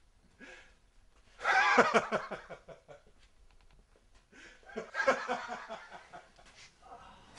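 A man laughing in two bouts, a louder one about a second and a half in and a weaker one near five seconds.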